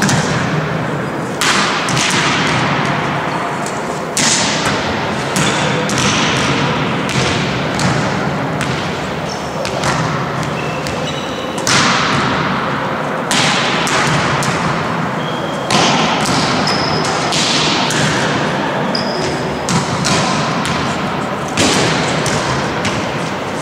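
Volleyballs being struck and bouncing on a wooden court, a sharp smack every couple of seconds that echoes through a large sports hall, with short high squeaks of shoes on the floor in between.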